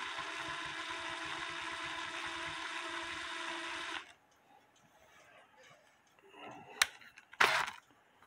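Cordless drill running steadily at low speed, winding a piece of wire around a bolt's threads to form a small spring; the motor whine stops about four seconds in. A sharp click and a short rustling noise follow near the end.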